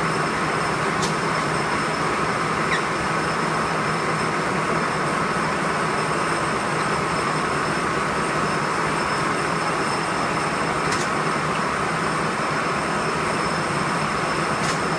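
36-inch rotary grinder running steadily: an even rushing noise with a steady whine and a few sharp ticks, one about a second in and two near the end.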